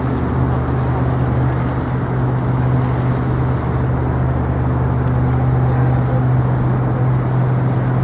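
An engine running with a steady low drone that does not change in pitch or loudness, over an even wash of noise.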